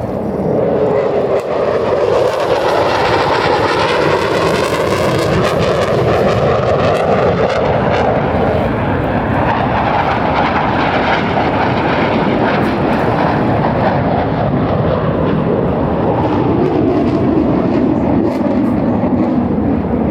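Loud jet noise from Blue Angels F/A-18 Super Hornets flying past, a sustained rushing sound whose pitch slowly shifts as the jets move across the sky.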